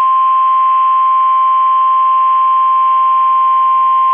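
NOAA Weather Radio warning alarm tone: one steady, unbroken 1050 Hz tone over a faint radio hiss, the signal that a warning message is about to be broadcast.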